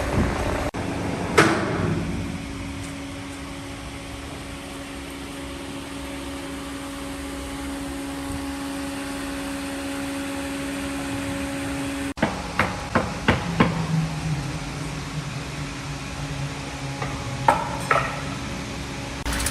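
Woodworking machinery running with a steady hum. Later come a quick run of about five sharp knocks, like wood being struck or dropped, and two more knocks near the end.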